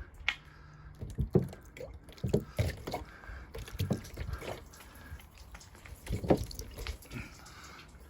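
Water poured onto a car's glass roof, splashing and dripping in irregular spatters as it washes softened bird droppings off the glass.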